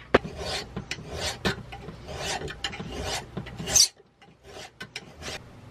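Hand file rasping back and forth over the soft-metal core of a 1950s David Bradley chainsaw magneto clamped in a bench vise, skimming it thinner so a smaller modern ignition coil will fit. A quick series of strokes stops about four seconds in, followed by a few lighter scrapes.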